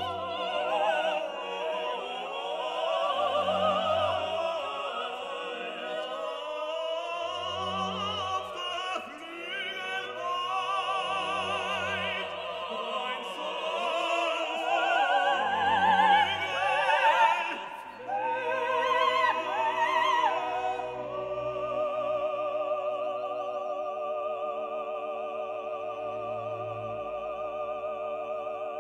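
Classical music: operatic singing with wide vibrato over an orchestra, with a low bass note sounding about every four seconds. About two-thirds in it settles on a long held chord that fades out at the end.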